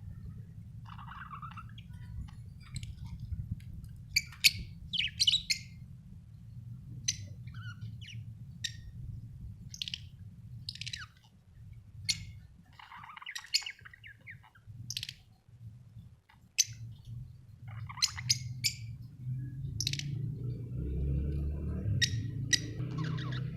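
Budgerigars chirping: short, sharp calls scattered irregularly, some in quick clusters, over a steady low hum.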